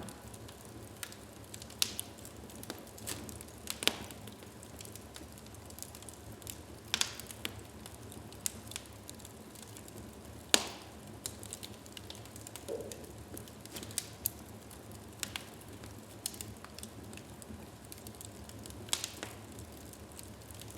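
Wood fire crackling in a fireplace: a steady low hiss with irregular sharp pops and snaps from the burning logs. The loudest pop comes about halfway through.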